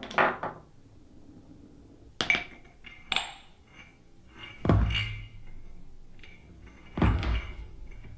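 A ceramic mug tumbling across a row of hardcover books, about five separate clinks and knocks, the heaviest thuds about halfway through and near the end.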